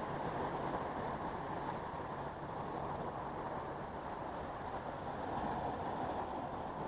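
Sea surf surging and washing against a rocky shore, a steady rushing noise, with a faint low hum underneath that stops about four seconds in.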